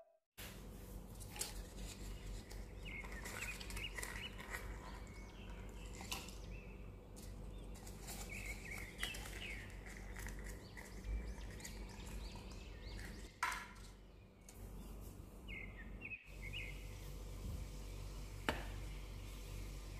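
Faint background of small birds chirping in short bursts over a low steady hum, with a couple of sharp clicks from handling kitchenware.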